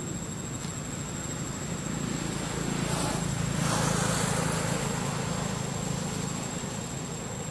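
Steady low engine hum of traffic, with a vehicle passing that swells about three seconds in and fades away again, over a thin steady high-pitched tone.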